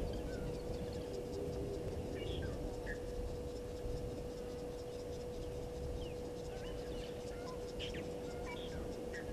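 Scattered short bird chirps and whistles over a steady low hum and faint, rapid insect ticking.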